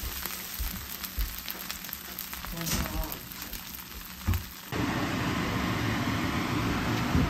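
Fried rice sizzling in a nonstick pan, with a few light knocks of a wooden spatula. About two-thirds of the way in, this gives way abruptly to a louder, steady rushing noise.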